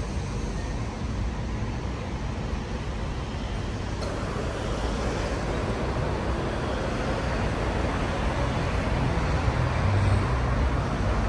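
Street traffic noise of passing cars, a steady rush of tyres and engines that grows a little louder about four seconds in.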